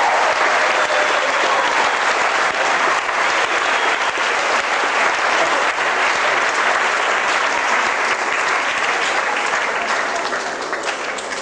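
Audience applauding in a hall, a dense steady clapping that thins to scattered claps near the end.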